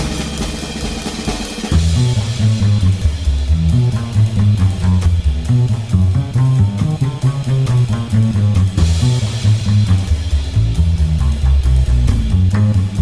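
Background rock music with drum kit, bass and guitar playing a steady beat. The bass line and drums come in fully about two seconds in.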